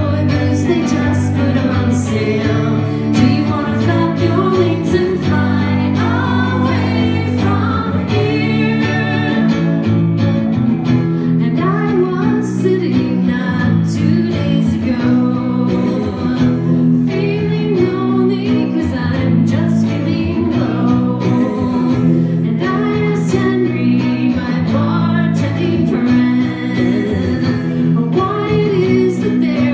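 A woman singing a rock song over electric guitar and a band, played live through a venue's PA and heard from the crowd.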